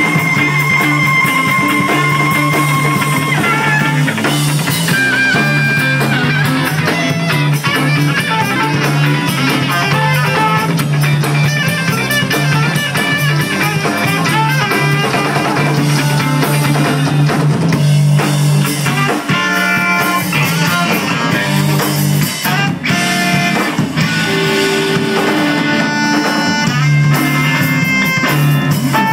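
Live instrumental band playing: saxophone, electric guitar, electric bass and drum kit. A long held note opens, then quick melodic phrases over a steady bass line and drums.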